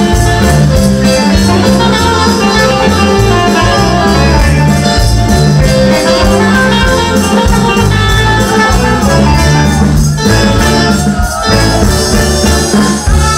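Loud Latin American dance music with a steady beat and heavy bass.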